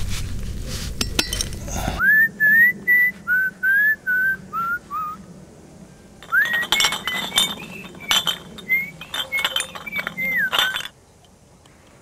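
Glass beer bottles clinking against each other, with a person whistling a short tune of quick notes, each scooping upward. It opens with about two seconds of rustling noise, and the clinking comes in about six seconds in and stops about a second before the end.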